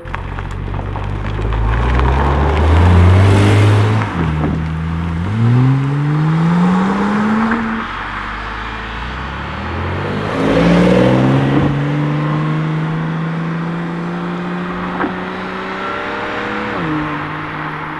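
A high-performance car's engine accelerating hard through the gears. The pitch climbs, drops at an upshift about four seconds in, and climbs again. A second rise in revs comes about ten seconds in, then holds a steady pitch until another drop near the end.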